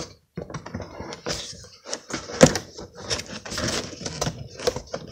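Cardboard packaging being handled: an action figure's inner box scraping and rustling as it is pushed into a tight outer cardboard box, with scattered clicks and one sharp knock about two and a half seconds in.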